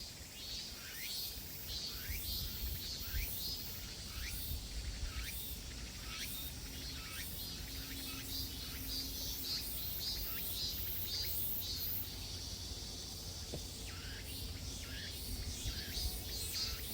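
Summer cicadas calling in a forest: a pulsing high buzz with a repeated rising call a little under two times a second, which breaks off for a couple of seconds about twelve seconds in and then resumes. A steady low rumble runs underneath.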